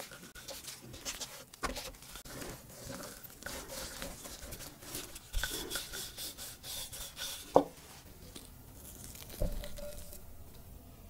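Close-up food-prep handling: black nitrile gloves rubbing and crinkling as a hand presses a disc of yeast dough flat on a wooden tabletop, with scattered light taps. One sharp click comes a little past halfway, and a low knock on the table near the end.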